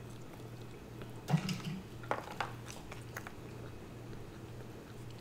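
Chewing and biting on fried chicken tenders close to the microphone, with a few short soft clicks, over a faint steady low hum.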